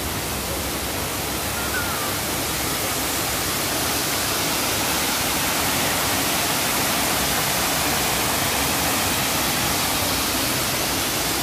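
Fountain jets arranged in a tall cone of spray falling into a stone basin: a steady rushing splash of water.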